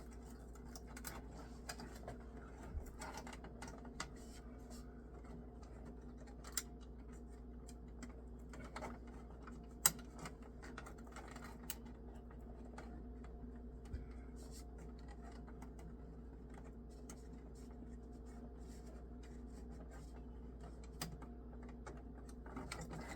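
Scattered light clicks and scratches of hands fishing a cable with a small bent hook, with one sharper click about ten seconds in, over a steady low hum.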